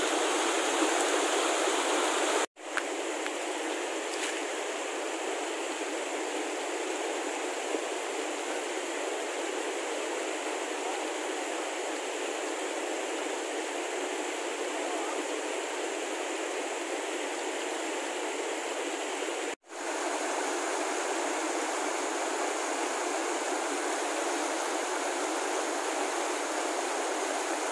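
Mountain river rushing over rocks: a steady wash of water, broken by two brief silent gaps, one near the start and one about two-thirds of the way through.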